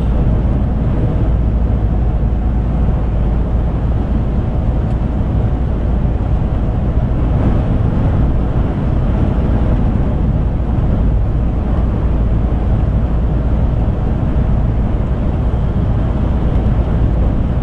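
Steady low rumble of a lorry's engine and tyres at motorway cruising speed, heard from inside the cab.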